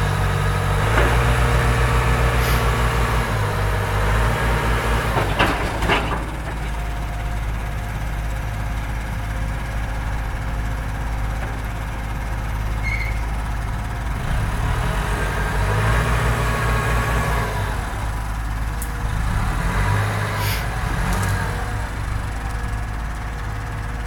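Heavy diesel engines of an excavator and bulldozer working hard, the engine note swelling and easing a few times as they take and release the load, with a few metal clanks.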